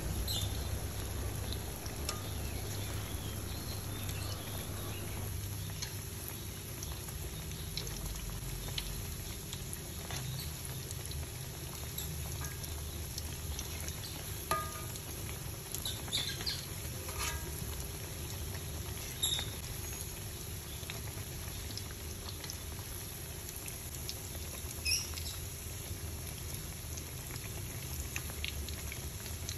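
Egg-coated potato bergedel patties frying in hot oil: a steady sizzle and bubbling, with a few sharp clicks in the middle and later part as metal tongs turn them.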